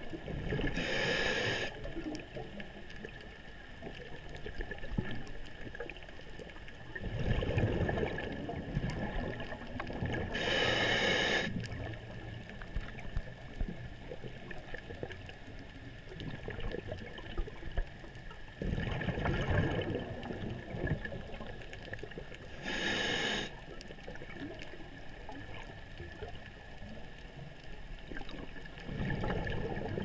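Scuba diver breathing through a regulator underwater: three short hissing inhalations, each about a second long, alternate with longer gurgling bursts of exhaled bubbles, the cycle repeating about every eleven seconds.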